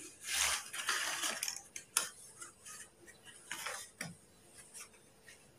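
Slate pencils tipped out of a small cardboard box, clattering onto a heap of slate pencils on a paper plate for about a second, then a few single clicks.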